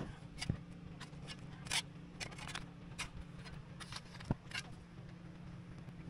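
A small plastic hand shovel scraping and digging into wet soil and gravel, giving irregular scrapes and knocks, over a steady low hum.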